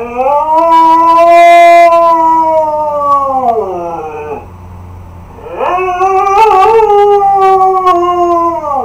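Husky howling: two long howls, each rising at the start, held, then sliding down in pitch at the end, with a pause of about two seconds between them. The second howl wavers briefly partway through.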